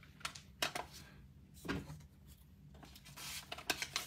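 Hard plastic graded-card slabs clicking and tapping as they are handled and set down, a handful of sharp clicks with a brief rustle about three seconds in.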